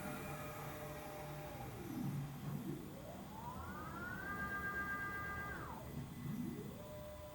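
Motors of a Triad SSR CNC stair router whining through a series of moves. Each whine rises in pitch as the motor speeds up, holds steady, then falls away as it slows. One move ends about two seconds in, a higher-pitched one runs through the middle, and another starts near the end.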